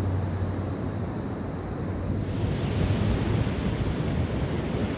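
Ocean surf washing on the beach, with wind buffeting the microphone as a low rumble. The wash swells a little about two seconds in.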